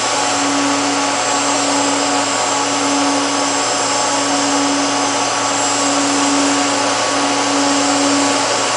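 Hot-wire TIG welding station running under an arc: a steady, even hiss with a constant hum underneath.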